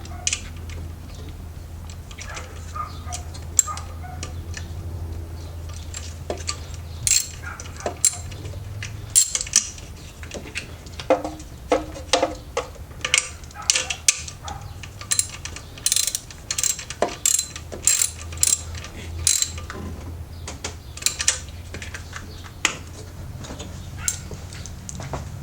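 Socket ratchet wrench clicking in short runs of quick strokes as a nut is tightened, over a steady low hum.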